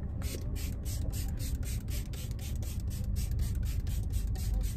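Makeup setting spray misted onto the face in a quick run of short pumped hisses, about five or six a second.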